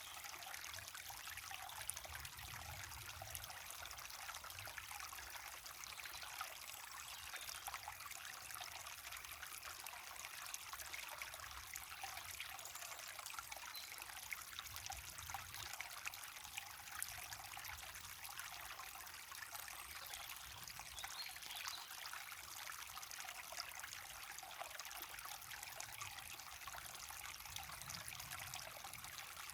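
Water running over a small waterfall, a steady fine splashing and trickling with no change.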